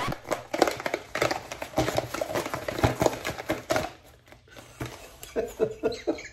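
Small cardboard box being handled: a quick run of taps, knocks and scrapes of cardboard against hands as it is turned and shaken, then softer cardboard rubbing near the end as the flap is pulled open.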